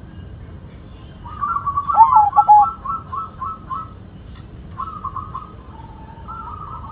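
White zebra dove (perkutut) cooing: about a second in, a rapid run of short, clipped notes, with a few louder downward-swooping notes among them, then two shorter runs of notes near the end.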